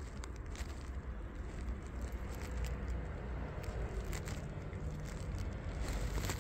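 Domestic cat eating dry kibble from a bowl: scattered crunchy clicks as it chews, over a steady low rumble.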